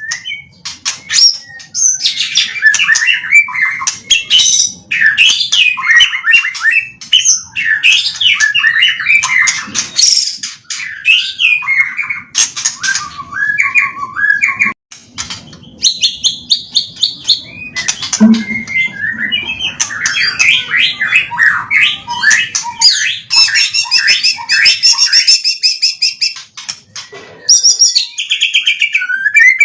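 White-rumped shama (murai batu) singing a long, varied song of rapid whistles, trills and chatter, including phrases learned from tutor birds, with a short pause about halfway.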